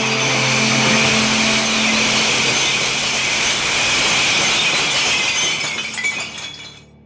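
Dense, loud clatter of many glass bottles, with a low hum underneath for the first couple of seconds, dying away near the end.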